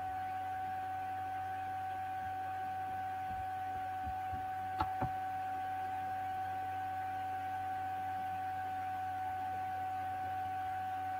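A steady electronic whine at one fixed pitch with a low electrical hum under it, and two faint clicks about five seconds in.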